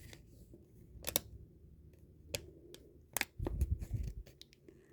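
Small plastic Lego pieces being handled and picked out: a few sharp clicks and fainter ticks, with a short stretch of low rustling handling noise after about three seconds in.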